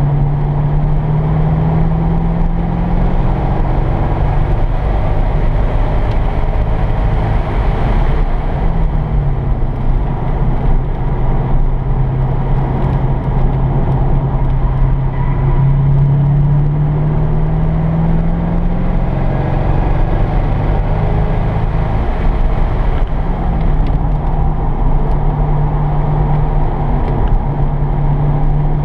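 C5 Corvette Z06's LS6 V8 engine, heard from inside the cabin, driven hard around a road course. Its pitch climbs slowly under acceleration and drops back several times as the driver lifts off or shifts for corners.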